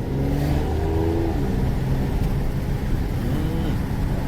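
Car engine running under acceleration, its pitch rising slightly and then easing off about a second and a half in, over a steady road rumble.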